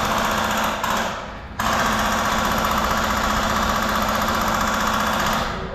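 Continuous rapid full-auto airsoft gunfire, a fast mechanical rattle that dips briefly about a second in, resumes abruptly and cuts off near the end.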